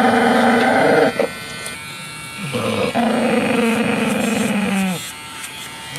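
Bull terrier growling in long, drawn-out bursts while its nails are done with an electric nail grinder: the dog's anger at having its nails handled. One growl breaks off about a second in, and another runs from about three to five seconds in and drops in pitch as it ends.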